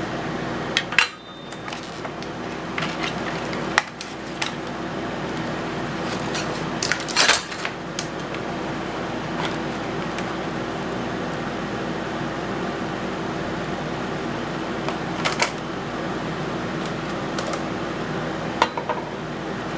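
Metal parts of a mortise lock set clinking and knocking as they are handled and set down, a few scattered clinks with a louder cluster partway through. A steady hum, like a fan or air conditioner, runs underneath.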